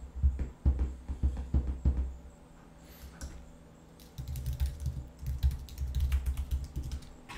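Typing on a computer keyboard: two runs of quick keystrokes. The first fills the first two seconds, and the second runs from about four seconds in until shortly before the end.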